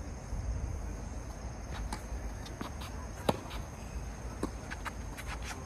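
Tennis rally: sharp pops of racket strikes and ball bounces, the loudest about three seconds in, with a run of fainter clicks near the end. Under them, a low steady hum and a thin, steady high whine.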